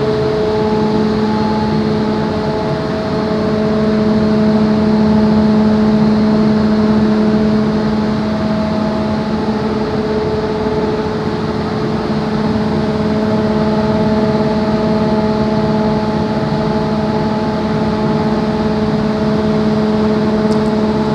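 Fluidized-bed grain dryer's blower running steadily: a rush of air with a constant hum under it.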